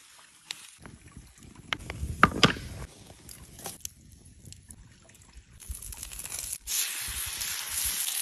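Salad leaves and onion handled in a wooden bowl, with rustling and sharp taps, then a wood fire crackling with a few sparse pops. From about two-thirds of the way through, a steady sizzle rises as a fish fillet is laid on a stone slab heated over the fire.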